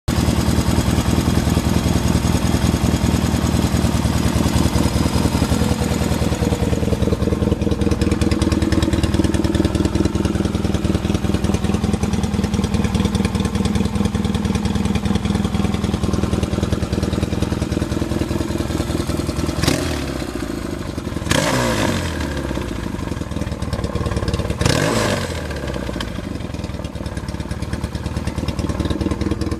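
1979 Yamaha XS650's air-cooled parallel-twin engine idling steadily after a rebuild, its carburettor mixture not yet finally set. Late on, the throttle is blipped three times a couple of seconds apart, each rev dropping back to idle.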